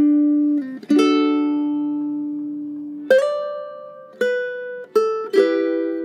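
Alegria UK58T ukulele, with a solid mahogany top and carbon strings, fingerpicked slowly: notes and chords are plucked and left to ring out. One chord sustains for about two seconds before a few quicker plucked notes come near the end.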